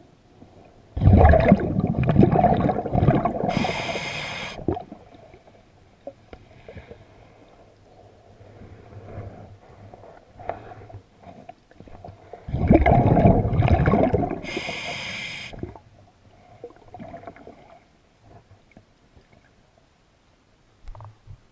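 A scuba diver breathing underwater through a regulator, heard twice: exhaled bubbles rumble for a few seconds, then a short hissing inhale through the demand valve. Faint scattered clicks and knocks fall between the breaths.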